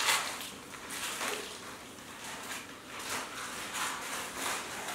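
Wrapping paper crinkling and tearing in a series of short, irregular rips as a gift is unwrapped.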